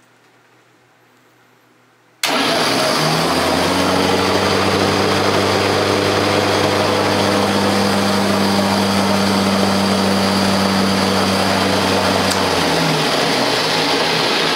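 Electric-converted Ariens snowblower's Leeson DC motor, switched on abruptly about two seconds in and running loud and steady: an even whir over a low hum that climbs quickly to speed. Near the end the low hum drops away while the whir carries on.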